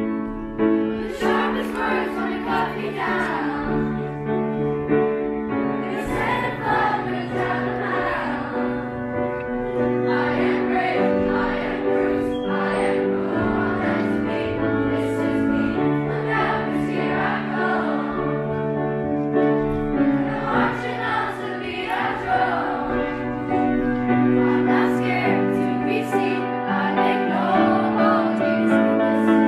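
Music with a group of voices singing together over long held chords.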